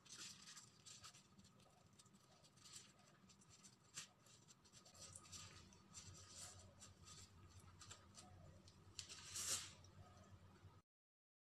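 Faint crinkling and rustling of disposable plastic gloves handling a flour tortilla as a wrap is folded closed, with a slightly louder rustle near the end. The sound then cuts out to silence.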